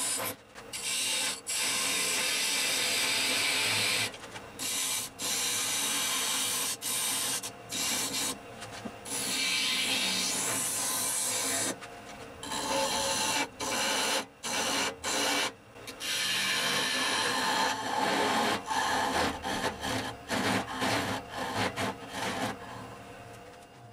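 Steel turning chisel scraping a spinning wood blank on a lathe: a loud, rasping hiss, broken again and again by sudden short gaps. It fades out at the very end.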